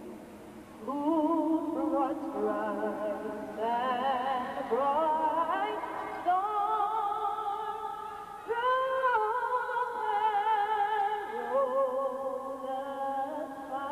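A woman singing solo and unaccompanied into a microphone, heard over the stadium's public-address system, with vibrato on long held notes; the strongest held note comes about eight and a half seconds in.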